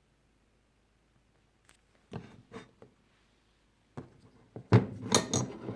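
Hand tools being handled and set down on a hard surface: a few light knocks about two seconds in, then a louder cluster of clunks and clatter near the end.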